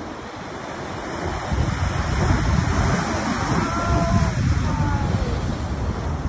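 Ocean surf breaking and washing over shoreline rocks, with wind buffeting the microphone. The surge swells about a second and a half in and stays loud.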